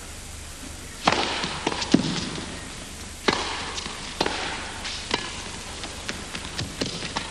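A tennis ball being served and then hit back and forth in a rally: sharp knocks of racquet strikes and ball bounces, roughly one a second, with the serve landing about a second in.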